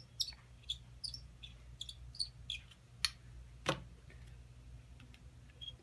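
Hand chamfering tool being twisted inside the mouth of a brass rifle case to cut the burr off the inside of the neck: light, irregular scraping ticks, a few per second, with a couple of louder clicks near the middle.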